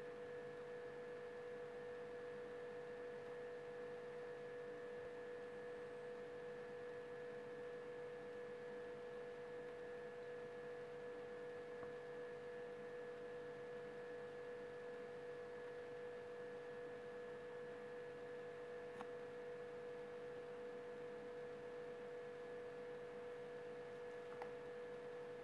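Faint steady electrical whine: one constant mid-pitched tone with fainter higher tones over a low hiss, unchanging. Two faint clicks come in the last third.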